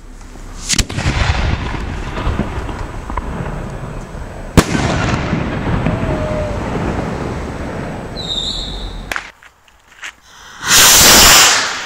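Homemade aerial firework shell fired with a sharp crack, then bursting about four seconds later with a louder bang and a long rolling rumble as it opens into a red spherical burst. Near the end comes a loud rushing hiss of about a second, typical of a black-powder rocket motor lifting a shell.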